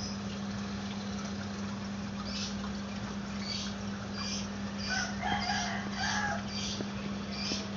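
Chickens calling in the background, a run of short high calls from about two seconds in, with a rooster crowing around five to six seconds in, over a steady low hum.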